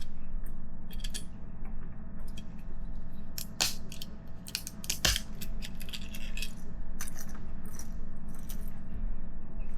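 PLA support material being snapped and pried out of a 3D-printed wheel rim by hand: irregular sharp plastic cracks and clicks, the loudest about three and a half and five seconds in.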